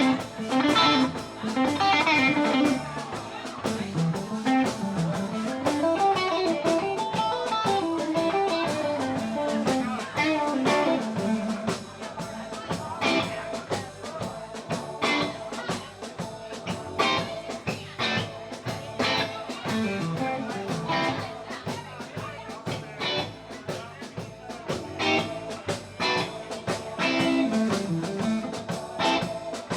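Live blues band playing an instrumental stretch: an electric guitar plays a bending, wandering lead line over a steady drum kit beat.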